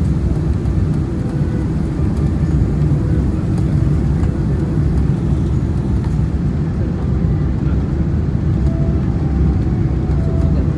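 Steady low rumble of a Boeing 787-10's engines and airflow heard inside the passenger cabin on final approach.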